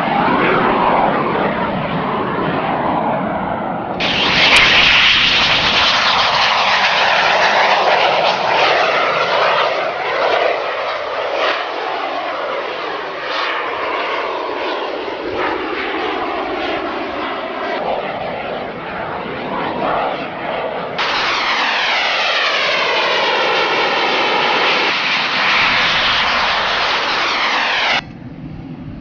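Airplane engines as an aircraft flies low past, the pitch sweeping up and down as it comes and goes, over several abrupt cuts between shots.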